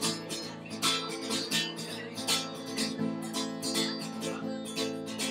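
Solo acoustic guitar strummed in a steady rhythm, with no singing.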